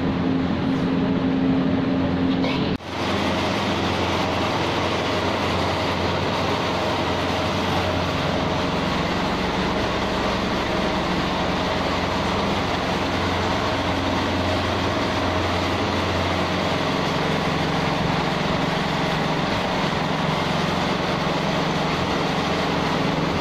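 Steady, loud rushing noise with a faint low hum underneath, broken by a brief drop about three seconds in.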